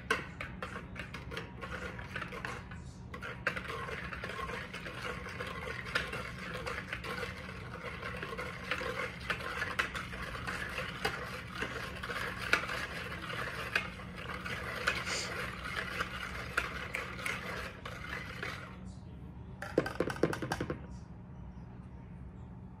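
Wire whisk beating a milk-and-sugar mixture in a plastic mixing bowl: a fast, steady scraping and clicking of the wires against the bowl. It stops about nineteen seconds in, followed by a short run of sharper knocks.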